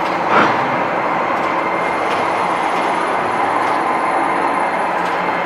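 Locomotive turntable turning with a locomotive on it: a steady mechanical running noise with a faint hum, and a single clank just under half a second in.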